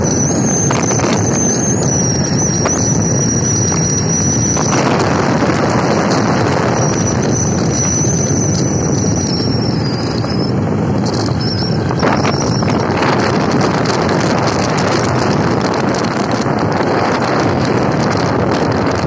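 Wind buffeting the microphone of a moving motorbike, a steady loud rush over the bike's road and engine noise. A thin high whistle wavers over the top for the first ten seconds and comes back briefly a little later.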